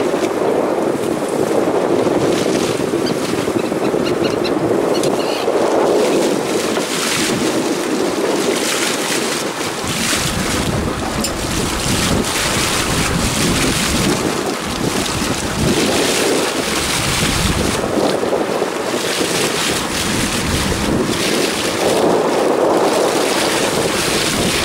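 Steady wind buffeting the microphone over the wash of sea water against a small fishing boat's hull.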